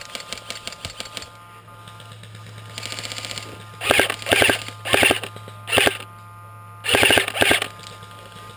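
Airsoft electric guns firing full-auto: faint rapid clicking at first, then a string of louder short bursts of fast, evenly spaced pops from about halfway through.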